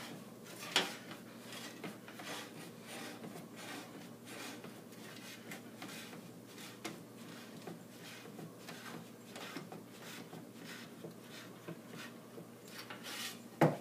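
A slotted wooden 2x4 hand tool being levered along the flange of an aluminium aircraft wing rib, making irregular scraping and creaking strokes as it bends the flange past 90 degrees so it springs back square. A sharp knock comes about a second in and another near the end.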